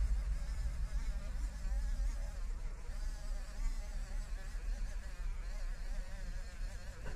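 Small handheld electric rotary tool running with a polishing bit held against an eyeglass lens to buff out scratches: a steady buzz over a low hum, wavering slightly in pitch as the bit is pressed and moved on the lens.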